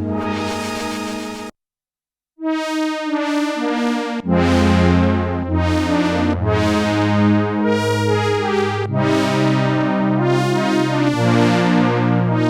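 Korg Minilogue XD polyphonic analog synthesizer playing presets. One patch cuts off suddenly about a second and a half in, and after a brief silence a new patch plays chords whose bright attacks fade on each note, with low bass notes joining about four seconds in.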